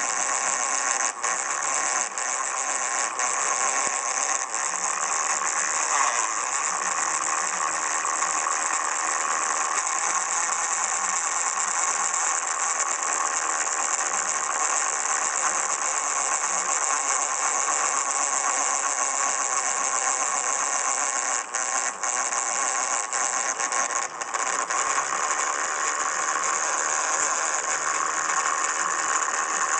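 Miniature dynamo-style electric motor driving a scale-model drill press, running steadily with a high, hissing whine as a fine bit drills into a small copper plate. It dips briefly a few times about two-thirds of the way through.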